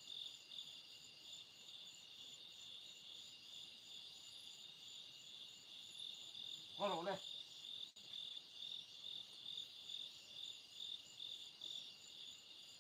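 Night insects trilling steadily in a high, evenly pulsing chorus. About seven seconds in, a person gives one brief call.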